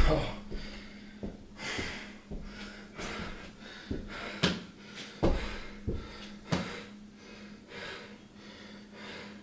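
A person breathing heavily while unwell, in soft repeated breaths, with several short knocks in the middle and a faint steady hum underneath.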